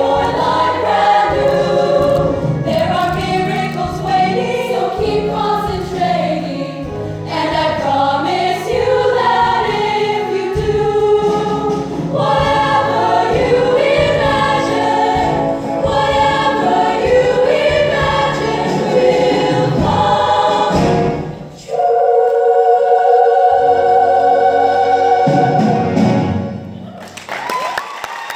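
Show choir of mixed voices singing a song in full harmony, ending on one long held chord that cuts off about 26 seconds in. Audience applause starts right at the end.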